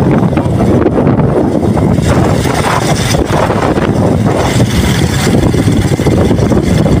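Wind buffeting a phone's microphone on an open bridge: a loud, rumbling rush that rises and falls unevenly.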